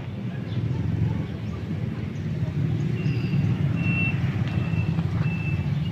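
Heavy vehicle's engine running with a steady low rumble, and from about halfway in its reversing alarm beeping about once every 0.7 s.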